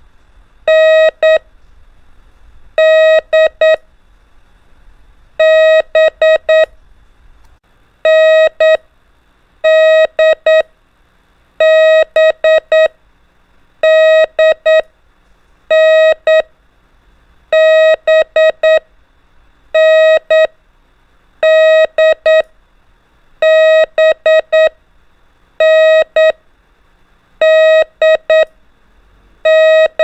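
Morse code practice tone keying the letters N, D and B (dah-dit, dah-dit-dit, dah-dit-dit-dit) one letter at a time, a steady mid-pitched beep, about one letter every two seconds, the letters coming slightly closer together as the speed increases.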